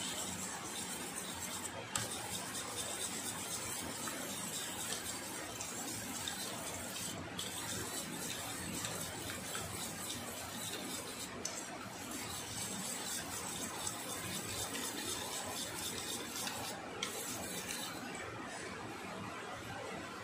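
A wire whisk beating a liquid egg-and-milk batter in a stainless steel bowl: a fast, steady rattle and swish of wire against metal, which stops near the end.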